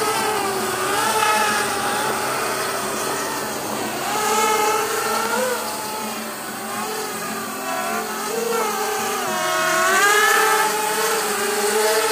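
Brushless motors and propellers of a JJRC JJPRO P175 175 mm FPV racing quadcopter in flight, a whine whose pitch rises and falls as the throttle changes. It peaks about ten seconds in with a rising whine.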